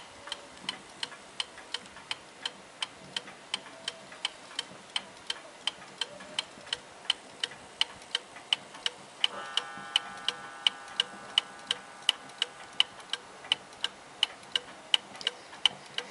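Ansonia marble mantel clock with an open escapement ticking steadily, about three ticks a second, its pendulum just set swinging.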